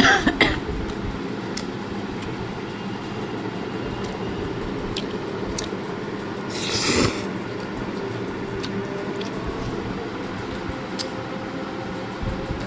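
A steady mechanical hum runs throughout, with a few light clicks of a metal fork against a ceramic plate, a cluster of them right at the start. About seven seconds in there is a brief, louder rushing swell.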